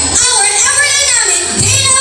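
A woman singing a song over instrumental backing music.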